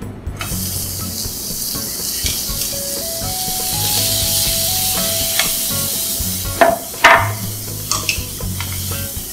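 Whole head-on shrimp sizzling in hot olive oil in a ridged grill pan. The sizzle starts suddenly about half a second in as they hit the pan. Past the middle come two sharp knocks of metal tongs against the pan.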